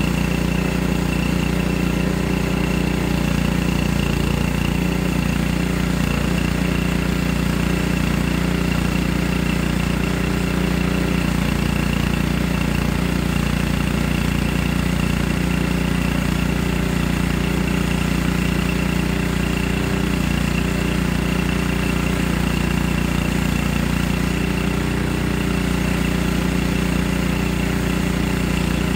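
Portable band sawmill's small gasoline engine running steadily as the band blade is pushed through a log.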